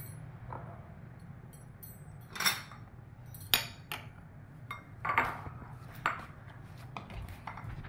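Spoon clinking against a dish of milk pudding several times, a second or so apart, each strike with a short bright ring.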